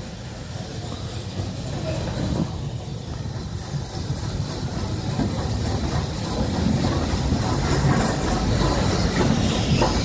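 Steam locomotive, a BR Standard Class 5, moving slowly along the platform road, growing louder as it draws closer: a low rumble of wheels on rail with hissing steam that strengthens near the end.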